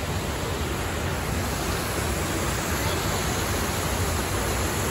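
River water pouring steadily over a small concrete drop, a continuous rushing noise.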